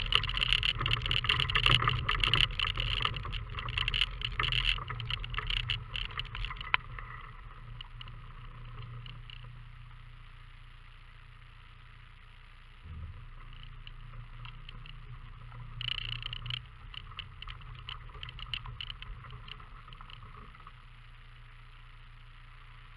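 Car driving slowly over a gravel forest track: a low steady engine hum with tyres crunching and stones rattling, loudest and busiest at first, then quieter. A single knock comes about halfway through, and a short burst of gravel crunching follows a few seconds later.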